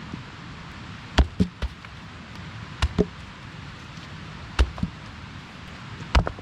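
Stones clacking together as they are dropped onto a pile beside a log: sharp knocks, three quick pairs and then a single one, over a steady background hiss.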